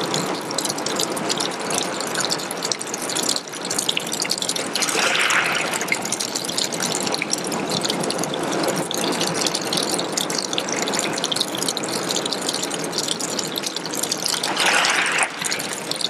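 Thin trickle of water running down a rock face and splashing onto wet pebbles, a steady crackling patter of small splashes, with a brief louder rush about five seconds in and again near the end.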